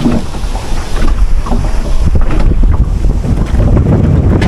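Wind buffeting the microphone on a small wooden boat on a river, a dense, steady low rumble with a few faint knocks.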